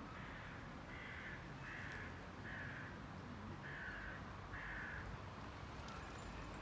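A crow cawing five times in a row, each caw about half a second long and spaced roughly a second apart.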